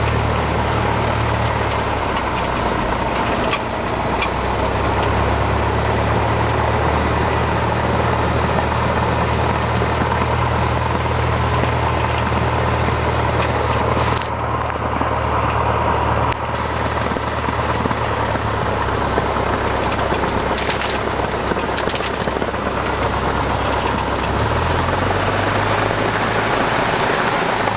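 Cessna 172's piston engine running steadily, with a constant low drone; its note shifts about 24 seconds in.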